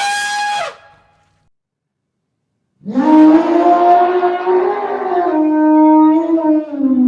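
Elephant trumpeting: a short, high trumpet blast at the start, then after about two seconds of silence a long, loud, brassy trumpet call lasting some four and a half seconds.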